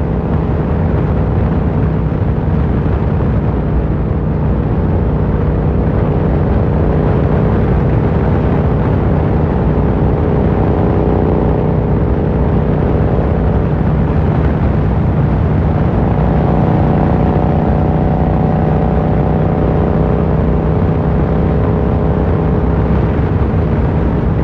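Yamaha MT-07 parallel-twin engine through an Akrapovic carbon full exhaust, running at a steady, even engine speed while riding, over a constant rush of wind noise. The pitch shifts only slightly about two-thirds of the way through.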